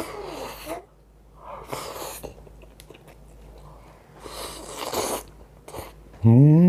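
A man eating grilled fish: chewing and mouth sounds with several short breathy bursts, then a loud hummed 'mmm' near the end.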